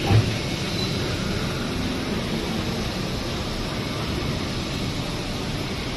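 Steady machine noise from a running plastic injection molding machine, with one short low thump just after the start.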